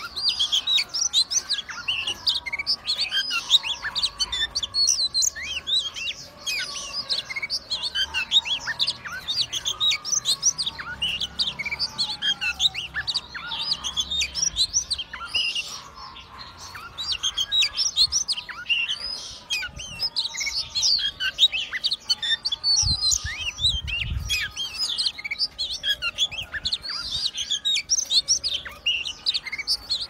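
Oriental magpie-robin singing continuously in a fast, varied stream of sharp chirps and whistles, with a short pause about halfway through.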